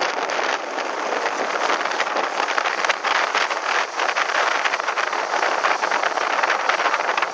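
Motorboat running over choppy water: a steady rush of wind and water with many sharp spatters of spray and hull slaps.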